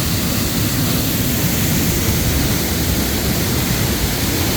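A waterfall heard at close range: falling water rushing steadily and loudly, an even noise with no let-up.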